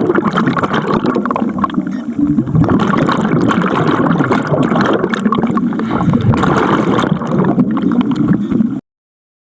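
Water bubbling and gurgling in a dense, irregular churn, cutting off abruptly near the end.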